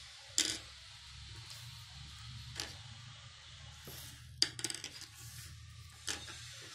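A sheet of drawing paper being handled and slid across a desk, giving a few sharp crackles and taps: one near the start, one midway, a quick cluster a little after four seconds, and one near the end, over a low steady hum.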